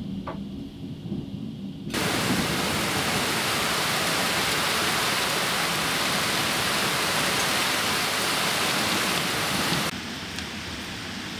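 A low thunder rumble, then heavy rain pouring down steadily after an abrupt cut about two seconds in. Near the end the rain drops to a quieter, lighter hiss.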